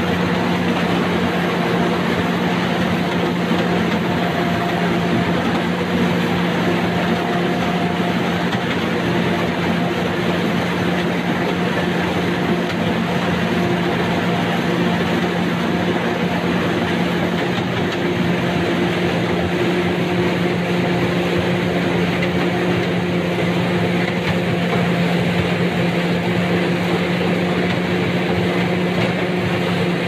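Corn combine harvester working under load: a loud, unbroken drone of engine and threshing machinery with a steady low hum, as the header takes in dry corn stalks.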